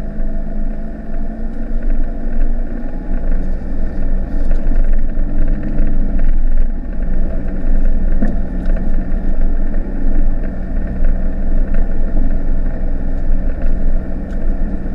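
Mitsubishi Delica's 2.8 turbo-diesel engine running steadily under load as the van drives a rough dirt track, heard from inside the cabin over a constant low rumble, with occasional knocks. The engine note shifts about three seconds in and again about six seconds in.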